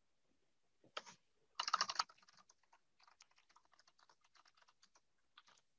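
Typing on a computer keyboard: a few louder keystrokes about one to two seconds in, then a run of faint, quick keystrokes.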